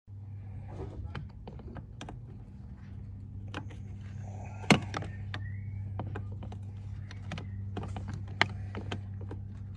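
Scattered, irregular clicks and light clatter of hand tools and parts being handled on a truck's brake master cylinder, over a steady low hum. One sharp, loud click comes about halfway through and another near the end.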